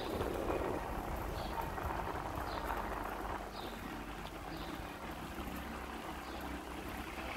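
Steady outdoor street noise with a low rumble, and faint short high chirps about once a second.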